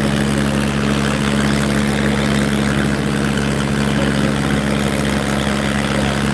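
Diesel engines of two tractors, a Sonalika and a Farmtrac, running flat out under heavy load as they pull against each other in a tug-of-war, holding a steady pitch.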